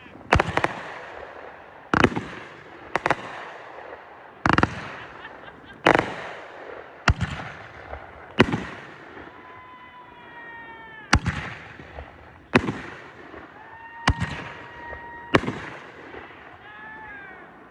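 Consumer fireworks going off in a steady run of sharp bangs, roughly one every second or so, each with a short echoing tail. Twice in the second half a whistling tone sounds before a bang: the first falls in pitch, the second holds steady.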